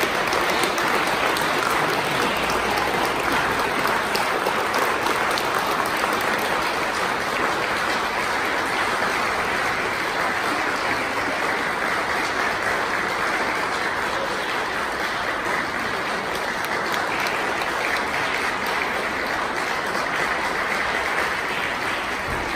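Audience applauding, a long steady round of clapping that holds unbroken throughout.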